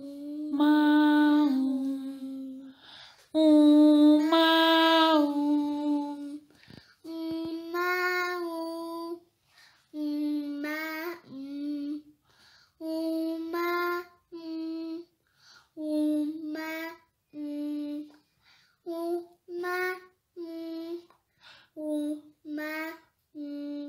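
A young girl singing a vocal warm-up exercise (vocalise): two long held notes that step up and down a little, then a string of short repeated sung notes at about one a second.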